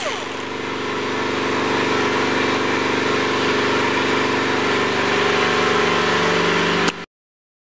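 Air die grinder with a small abrasive disc running steadily as it grinds the cut edge of a plastic panel. The sound cuts off abruptly about seven seconds in.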